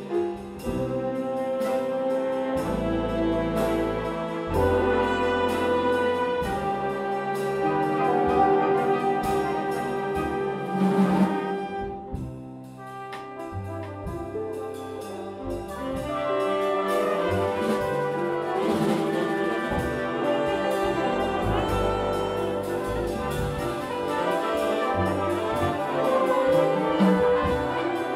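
Big jazz band playing an ensemble passage, the brass section of trumpets and trombones with saxophones holding chords over bass and drums.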